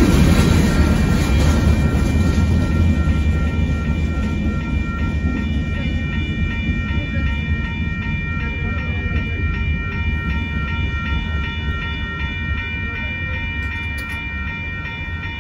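A freight train of gravel hopper cars rolls past the crossing, its low rumble fading as the last car clears. Over it, the grade crossing's warning bell rings on steadily.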